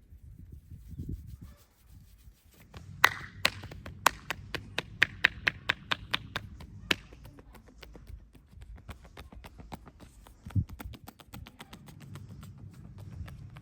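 Massage tapping: hands striking the head and back in a quick rhythmic run of sharp slaps and taps, about four to five a second. It starts about three seconds in and is loudest over the first few seconds, then softer. A low rubbing of hands on skin runs underneath.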